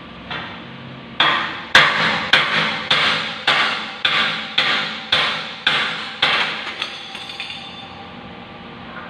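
Hammer blows on steel framing: about ten hard strikes at roughly two a second, each ringing briefly, then a few lighter taps.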